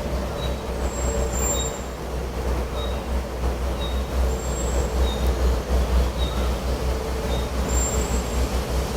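Wind blowing with a low, pulsing rumble, while birds give short, high chirps about once a second.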